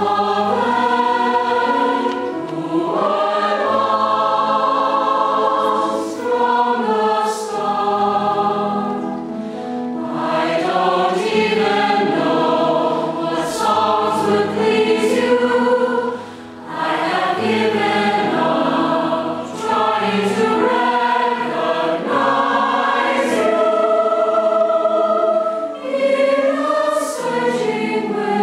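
Mixed choir singing slow, sustained chords in long phrases, with a brief break between phrases just past halfway.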